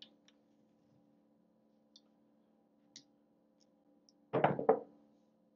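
Quiet room with a steady low hum and a few faint clicks, then a short, louder burst a little past four seconds in.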